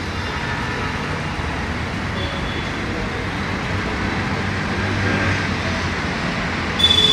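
Steady city traffic noise, a low hum of road vehicles. Near the end a loud, high-pitched steady whine sets in.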